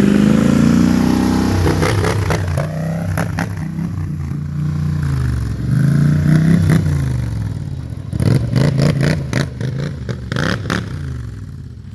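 Engine of an ATV or motorcycle fitted with an RJWC aftermarket exhaust, running and revving, its pitch falling and climbing again several times, with sharp cracks scattered through it.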